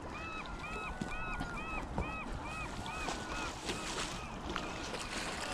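A bird calling a quick series of short, arched notes, about three a second, which fade out after about four seconds, over the steady rush of the river.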